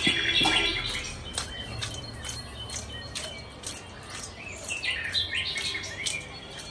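Small birds chirping in quick, high calls: a burst at the start and another about five seconds in, with scattered light clicks and taps in between.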